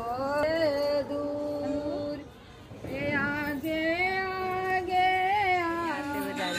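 A woman singing a Chhath devotional song (Chhath geet) to Chhathi Maiya, solo and unaccompanied, in long, drawn-out wavering notes. There are two phrases, with a short breath about two and a half seconds in.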